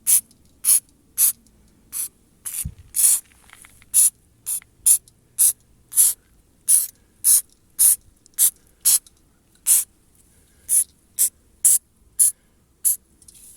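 Aerosol can of silicone spray lubricant hissing in about twenty short bursts, roughly two a second, as it is sprayed onto a car door handle's joints to stop them creaking.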